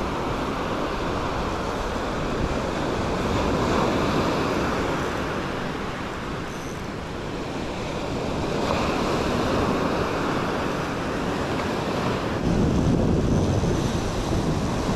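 Surf washing up a sandy beach, swelling and easing every few seconds, with wind buffeting the microphone.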